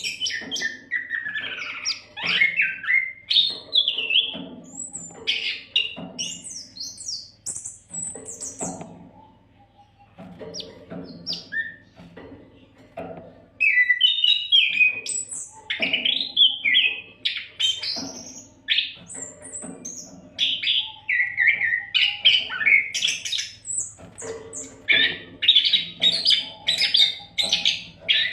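Oriental magpie-robin (kacer) singing without pause: a rapid string of varied whistled and chattering phrases, quieter for a few seconds in the middle, over a faint low hum.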